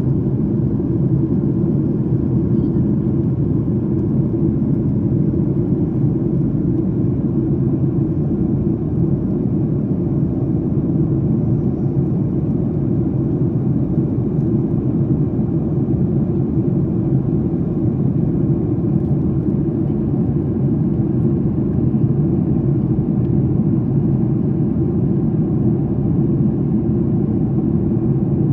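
Airliner passenger cabin in flight: the steady, low drone of the engines and airflow, unchanging throughout.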